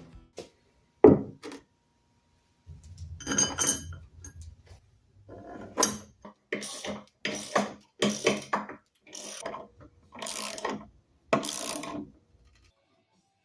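A series of short clattering knocks, like hard objects being handled and set down: one about a second in, another a couple of seconds later, then about eight in a quick run in the second half, with a low rumble under them.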